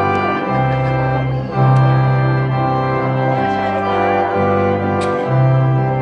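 Slow instrumental music: held chords over a bass note that shifts every second or so, with no singing.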